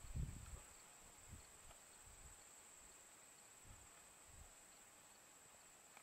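Near silence in open prairie: a steady faint high-pitched hum, with a few soft low bumps of wind on the microphone.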